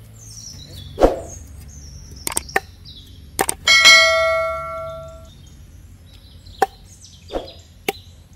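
A cleaver chopping a whole fish on a round wooden chopping block: a string of sharp chops, the first and heaviest about a second in. Around the middle a bell-like ding rings out and fades over about a second and a half, the chime of a subscribe-button animation. Birds chirp faintly at the start.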